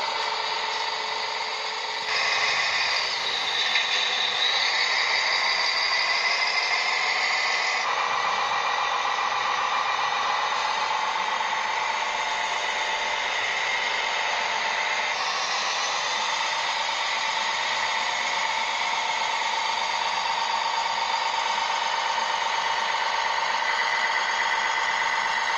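Small electric motors and gearboxes of RC construction models whining steadily. The pitch shifts slightly, and the sound changes abruptly a few times.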